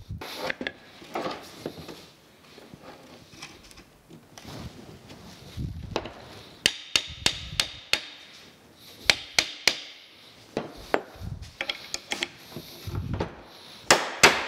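A small hammer tapping at the pinned clevis joint of a steel valve rod, driving and setting a cotter pin: sharp metallic taps in quick groups of several, mostly in the second half, with some clinking and handling of the steel parts on the bench before them.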